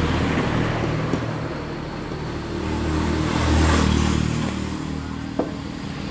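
Engines of motorcycles passing on the street, the drone swelling to its loudest about three and a half seconds in.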